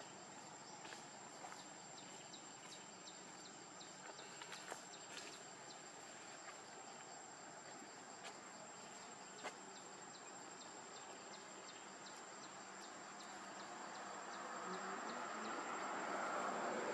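Faint outdoor insect chorus: a steady high-pitched drone with rapid, regular chirping. There are a few scattered clicks, and a broad rush of noise swells over the last few seconds.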